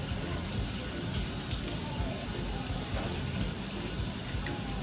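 Tap water running steadily from a faucet, splashing onto a metal tray of small fish.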